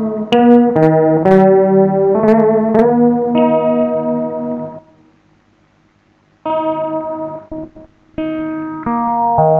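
Electric guitar played through a guitar multi-effects pedal: a melody of single sustained notes. The playing stops for about a second and a half midway, then resumes.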